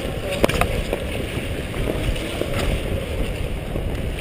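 Wind rushing over a helmet-mounted camera's microphone while skating fast on ice, mixed with the scrape of short-track speed-skate blades. Two sharp clicks come about half a second in.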